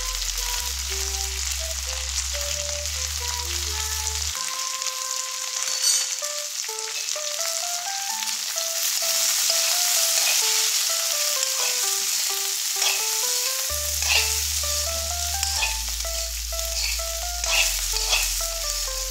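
Cut green beans sizzling as they fry in a metal kadai, with a metal spatula stirring and scraping against the pan, clicking sharply a few times near the end. Background music with a stepping melody sits underneath, its bass dropping out for several seconds in the middle.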